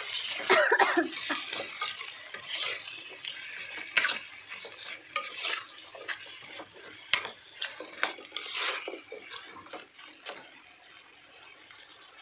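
Steel spoon stirring and scraping diced potatoes and eggplant in a non-stick frying pan, with irregular clinks of spoon on pan and two sharper knocks, about 4 and 7 seconds in.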